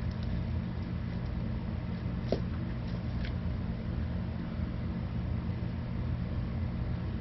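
Steady low mechanical hum, with a couple of faint light clicks a little over two and three seconds in as small items are handled on the counter.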